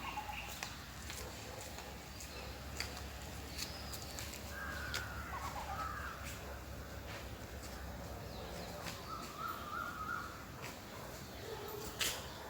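Outdoor nature ambience with bird calls in two bouts, about five seconds in and again about nine seconds in, over a steady low rumble and scattered clicks.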